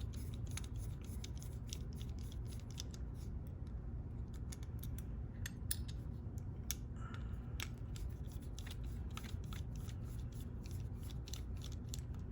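Small metal parts of a Goal S five-pin lock clicking and scraping in quick, irregular ticks as the picked lock is worked on and taken apart.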